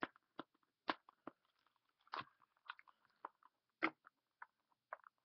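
Irregular crackles and clicks of a small nail-sequin kit's plastic packaging being handled and opened by hand, a dozen or so short sharp snaps with brief quiet gaps between them.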